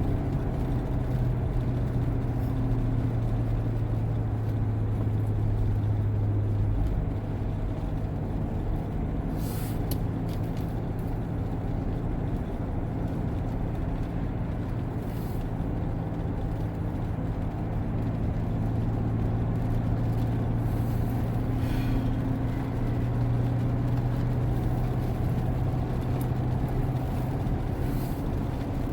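C7 Corvette's V8 engine running steadily while the car is driven, a continuous low drone that shifts slightly in pitch a couple of times.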